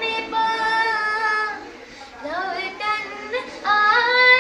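A child singing in a high voice, holding long notes and sliding between them.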